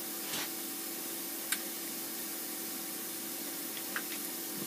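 A machine running steadily in a workshop: an even hiss with a low steady hum, and a few faint light clicks from tools being handled.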